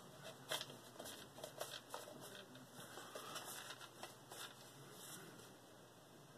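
Faint, scattered clicks and light taps of washer parts being handled and fitted into place, thinning out near the end.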